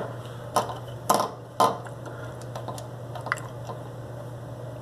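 Several short, sharp clicks and knocks of small hard objects being handled, about half a second apart over the first two seconds, then a few fainter ticks, over a steady low hum.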